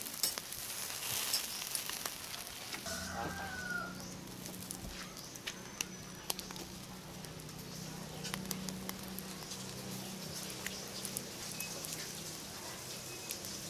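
Sauce-basted steak sizzling on a wire grill over charcoal, with scattered pops and crackles as it is brushed. A chicken calls briefly about three seconds in.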